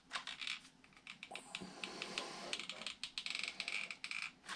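Faint, irregular clicking and crackling of a hot glue gun being worked to lay a bead of hot-melt glue along a foam model plane's fuselage.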